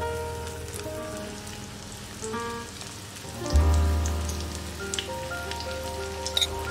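Parsley omelette batter patties sizzling in hot oil in a frying pan, a steady crackling hiss with small pops, under background music whose bass comes in about halfway through.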